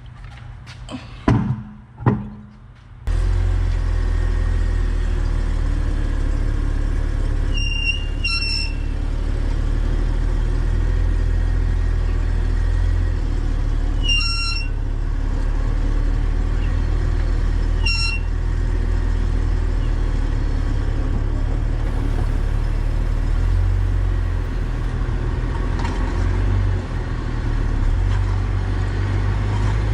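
A few knocks, then a car driving with a steady low road rumble. Short, high brake squeals come four times: a pair about eight seconds in, one in the middle and one a few seconds later. The squealing brakes have rust built up on them from the car sitting for a long time.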